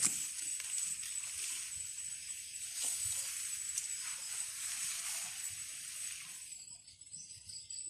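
Chili plant leaves rustling and brushing close against the phone as it is pushed through the foliage, with small scattered clicks; the rustling dies away about six and a half seconds in. A thin steady high-pitched tone runs underneath.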